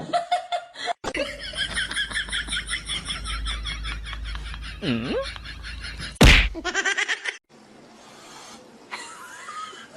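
A person laughing hard in quick, rapid bursts, broken by a loud sudden noise about six seconds in, with a much quieter stretch near the end.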